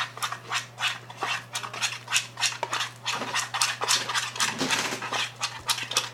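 Spoon stirring thickening white-glue slime in a bowl: quick, irregular wet, sticky clicks and smacks, several a second, as the activator makes it set. A steady low electrical hum runs underneath.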